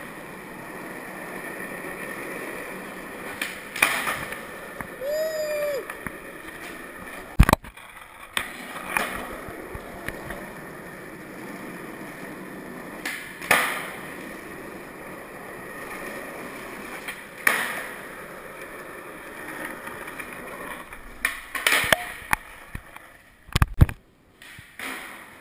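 Skateboard wheels rolling on smooth concrete in a parking garage, broken by a string of sharp wooden clacks as the board's tail is popped and the board lands during flatground tricks.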